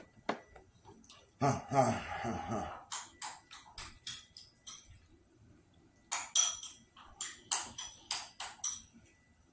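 A metal fork clinking and scraping against a plate in two runs of quick, ringing taps, plus eating and handling noise. A short voiced murmur comes about a second and a half in.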